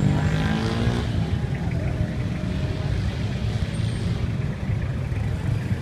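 Steady low rumble of a car's engine and road noise heard from inside the moving vehicle, with a brief pitched sound in the first second.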